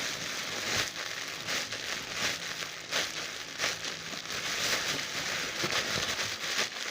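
Dense, continuous crinkling and rustling of plastic as foam squishy toys and their plastic bags are handled and squeezed.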